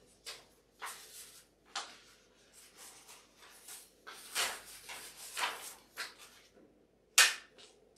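Sheets of paper being handled and shuffled, in short irregular rustles, with one sharper, louder rustle near the end.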